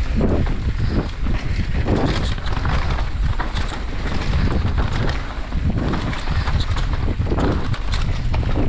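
Wind buffeting the microphone of a downhill mountain bike at speed on a dry dirt trail, with tyre roar and frequent clicks and knocks from the bike rattling over roots and rocks.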